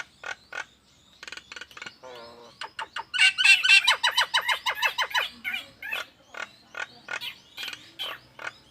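Nias hill myna calling: a quick run of short repeated notes, densest and loudest from about three to five seconds in, with scattered single notes before and after.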